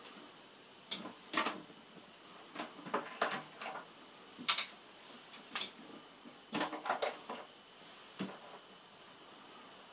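Curtains being handled at a window: a string of short, irregular clicks and rustles from the fabric and its fittings, spread over several seconds.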